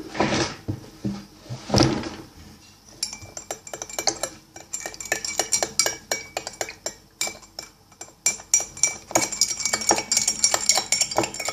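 A metal spoon stirring borax into warm water in a bowl, clinking repeatedly against the sides, with a quieter stretch about four to five seconds in.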